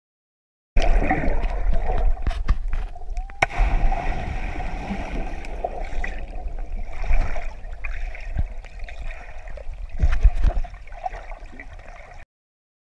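Bubbles churning and gurgling underwater after a swimmer plunges into a river, heard muffled through an underwater camera. The sound starts and stops abruptly, with louder surges in the first few seconds and again about ten seconds in.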